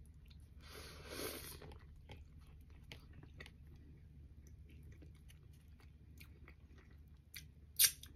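Biting into a fried chicken sandwich and chewing: a crunching bite about a second in, then quiet, scattered chewing clicks, and one sharp mouth click near the end.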